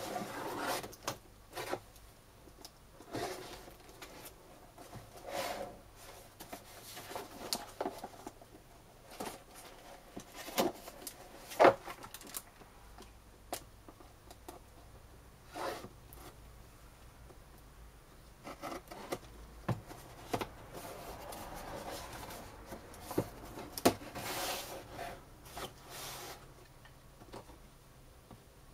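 Pocketknife blade slitting packing tape on a cardboard box in short scraping strokes, with the box rubbing and knocking as it is handled. A sharp knock about twelve seconds in is the loudest sound.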